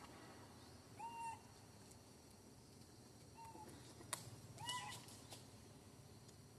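Baby macaque giving three short, faint coo calls a second or two apart, each rising and falling. There are a few light clicks around the middle.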